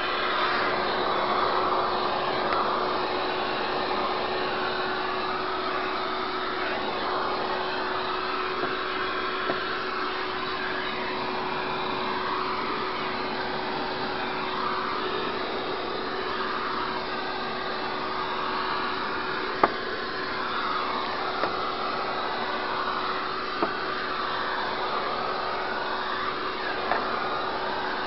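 Shop vac running steadily with a constant hum, its suction hiss shifting as the nozzle is worked over a heat pump's evaporator coil, with a few sharp clicks in the second half.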